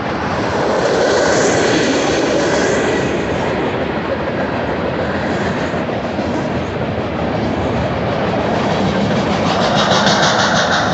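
Union Pacific manifest freight train rolling past close by: a loud, steady rumble and rattle of the freight cars on the rails. Near the end a fast, even clatter of wheels grows louder.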